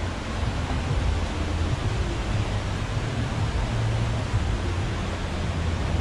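Steady rushing roar of a large waterfall and the river below it, with an uneven low rumble on the microphone that comes and goes.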